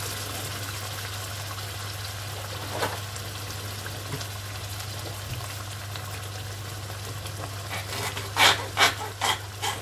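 Pot of tomato and minced-meat sauce simmering on the hob: a steady soft sizzling hiss over a constant low hum, with a few short sharp clatters near the end.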